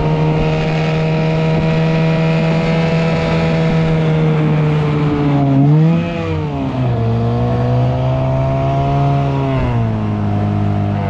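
1979 Evinrude 6 hp two-stroke outboard motor running hard, pushing a small aluminium jon boat. About six seconds in its pitch swings up and back down, then it runs on at a lower pitch and drops again near the end.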